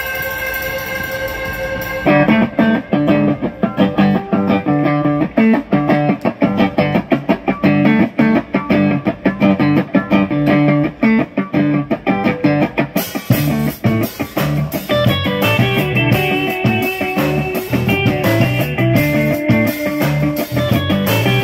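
Live rock band playing an instrumental passage on electric guitars, bass guitar and drums. A held chord rings for the first couple of seconds, then the full band comes in with a steady beat, and cymbals join about two-thirds of the way through.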